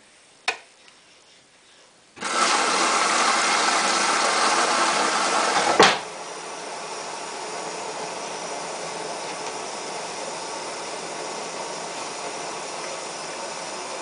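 Samsung WF8804RPA washing machine starting to fill: a click, then a couple of seconds later water rushes in with a loud hiss for about four seconds, which drops after a second sharp click to a quieter steady flow.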